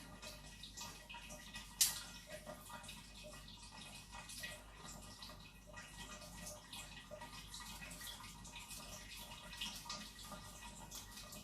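Faint, scattered light clicks of chopped onion pieces being sprinkled by hand onto tomato-paste-covered chicken breasts, with one sharper tap about two seconds in.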